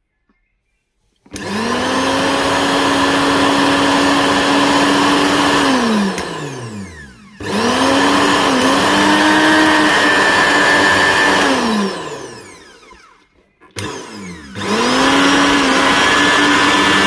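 Koryo mixer grinder's universal motor switched on and off three times. Each run spins up quickly, hums steadily for a few seconds and winds down falling in pitch. The motor runs smoothly with no abnormal loud noise, the sign that the repair, including a new coupler, has cured the fault.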